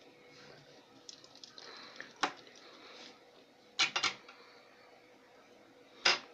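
A sponge dabbed and rubbed over a paper stencil: soft scuffing, with four sharp taps, one about two seconds in, two close together about four seconds in, and one near the end.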